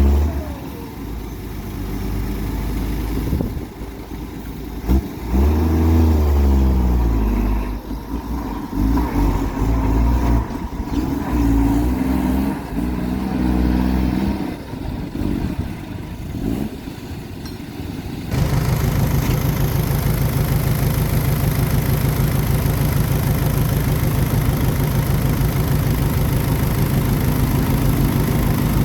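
Heavy machinery's engine working under changing load, its pitch rising and falling again and again. About two-thirds of the way through it cuts abruptly to a steady engine running with a fast, even beat.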